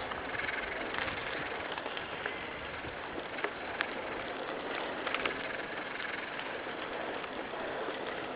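Steady rushing outdoor noise along a pine-forest track, picked up by a handheld camera's microphone while it moves, with scattered faint clicks and ticks.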